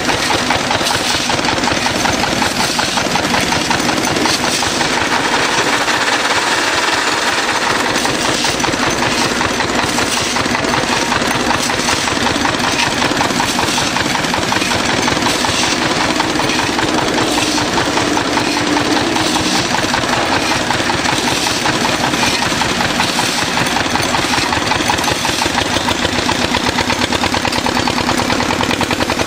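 Small engine of a concrete mixer running steadily, with a fast, even knocking beat that does not change.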